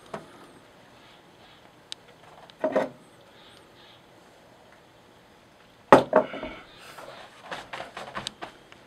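A mug and other objects handled on a wooden table in a small, quiet room: scattered knocks and clinks, with a sharp, louder knock about six seconds in.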